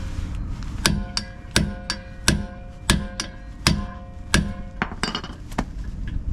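A hammer striking a TEKTON 1/2-inch manual hand impact driver again and again to break loose a rusty brake rotor retaining screw: about a dozen sharp metallic blows, a hard one roughly every 0.7 s with lighter ones between, with a ringing metal tone lingering under them.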